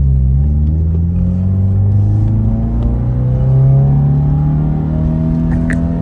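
Subaru WRX's turbocharged flat-four engine pulling in gear, heard from inside the cabin, its note rising slowly and then easing off near the end.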